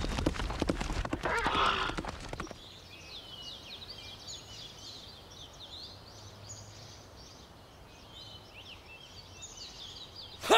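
Horse hooves clip-clopping, stopping about two and a half seconds in. A quieter stretch of short, high chirping follows.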